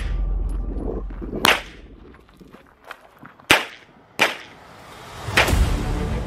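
Pistol shots fired outdoors in a practical shooting stage: four single shots spread out, the middle two close together, each with a brief ringing echo.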